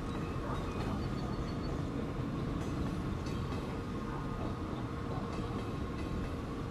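Freight train cars rolling past, a steady low rumble on the rails.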